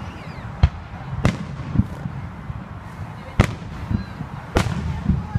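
Aerial fireworks shells bursting: about five sharp bangs at uneven intervals.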